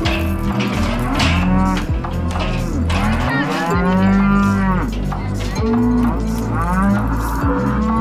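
Cattle mooing, several long calls overlapping one another, the loudest about four seconds in.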